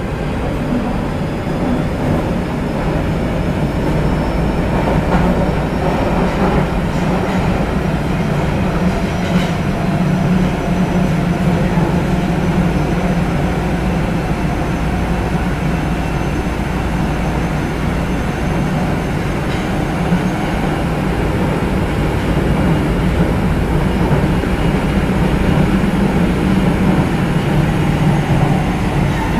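Nagoya Municipal Subway 2000 series train heard from inside the car, running steadily through the tunnel between stations. There is continuous rolling noise with a strong low hum, over the loud drone of the car's air conditioning.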